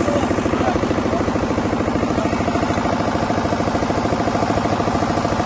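An engine idling with a steady, fast, even throb.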